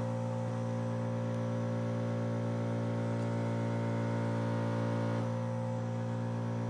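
Steady electrical hum, a low buzz with a stack of even overtones.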